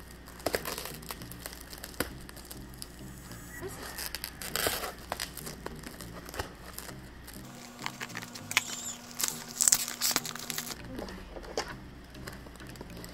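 Scissors snipping through a plastic mailer and the plastic packaging crinkling and tearing as a package is opened and its contents pulled out. The sound comes in irregular bursts, loudest about a third of the way in and again past the middle.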